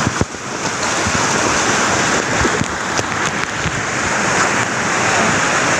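Whitewater river rapids rushing around the raft: a steady, loud roar of churning water, with a few faint knocks.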